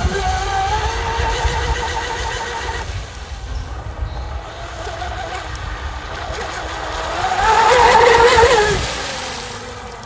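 Surge Crusher RC speedboat's stock 2000kv brushless motor whining at speed on a 5-6S lipo, with the hiss of its spray. The pitch rises near the start, holds, then drops about three seconds in, and the whine is loudest about eight seconds in before fading.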